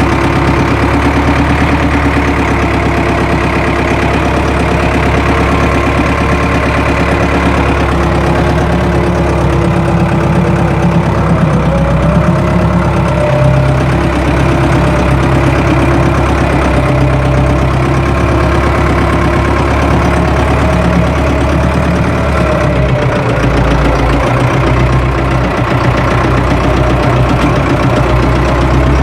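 Tractor engine running steadily, with small shifts in pitch.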